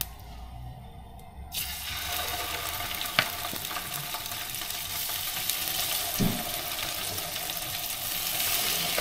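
Salmon fillets sizzling in hot oil in a frying pan. The sizzle starts suddenly about one and a half seconds in as the first fillet goes into the pan, holds steady and grows a little louder near the end as more fish is added.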